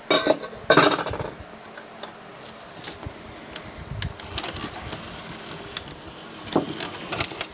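Clicks and clatter from the opened Denon DVD-M330 player's disc drive mechanism, over a faint steady hum: two loud clacks at the start and about a second in, smaller clicks after, and another clack near the end. The drive is trying to read the disc, which the player keeps reporting as 'no disc'.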